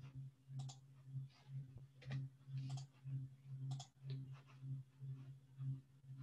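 Faint computer mouse clicks, a few at uneven times, over a low hum that pulses about twice a second.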